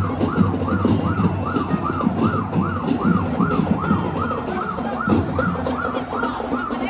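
An electronic siren in rapid yelp mode, its pitch sweeping up and down about three times a second without a break, over a low, irregular rumble.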